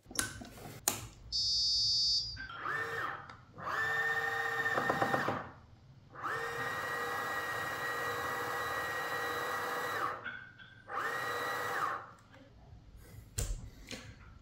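Meade ETX-125 telescope's slew motors whining as the drive is worked from the handbox: four runs, each rising in pitch, holding a steady whine and then dropping off, the longest about four seconds. A short high-pitched beep sounds about a second and a half in.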